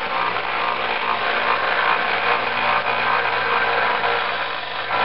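Small Harbor Freight belt sander with an 80-grit belt, running steadily: a motor hum under an even rushing belt noise.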